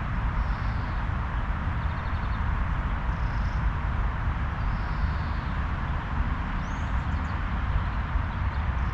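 Steady wind blowing, with a low rumble, and a few faint bird chirps over it, including a quick run of ticks and a short rising note.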